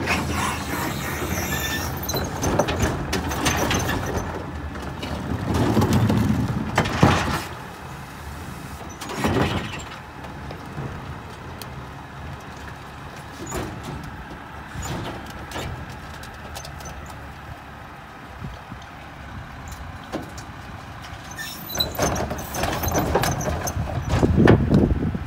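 Split rear-loader garbage truck working at the curb: the engine runs under the hydraulic packer while carts are emptied into the hopper, with bangs and clatter of trash and carts and some squealing. The clatter is loudest over the first several seconds, eases in the middle, and comes back near the end.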